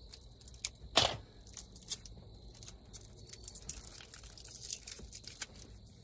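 Crinkling and rustling of packaging as small parts are handled, with scattered light clicks. The loudest rustle comes about a second in.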